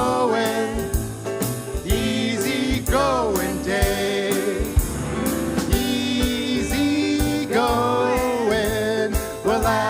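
Small live band of drums, guitar and bass playing an upbeat tune, with a singing voice that slides up and down in pitch.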